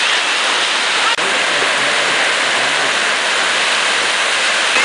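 Small ocean waves breaking close by, the whitewater rushing and fizzing in the shallows as a steady, loud hiss of surf.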